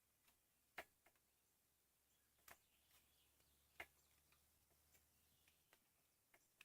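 Near silence broken by a few faint, sharp clicks and light handling taps, three of them a little louder than the rest, spread about a second apart.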